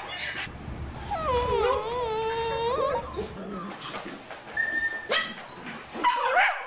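Crated puppies whining and yelping: one long, wavering whine about a second in, lasting nearly two seconds, then short, sharp yelps near the end.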